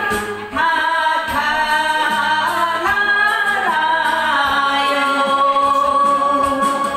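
A woman singing a Japanese enka song along to a karaoke backing track, holding one long note through the second half.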